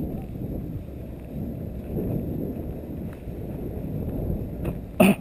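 Deep, uneven rumble of wind buffeting and handling noise on a body-worn camera's microphone while walking, with a sharp knock just before the end.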